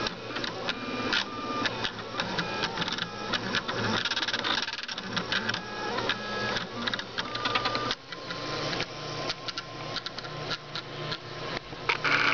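Small DVD-drive stepper motors of a homemade CNC laser engraver, whining in short spurts whose pitch keeps changing as they step the laser head back and forth, with rapid clicking between moves.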